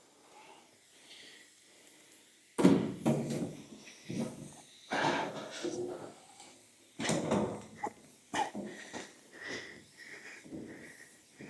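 Irregular knocks, scrapes and creaks of a body panel being forced and worked into place by hand, starting about two and a half seconds in.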